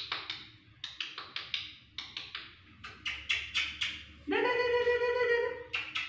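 Runs of light, quick clicks and taps as a green-cheeked conure's feet and beak work over the tile floor and the wire cage, followed about four seconds in by a steady held note lasting about a second and a half.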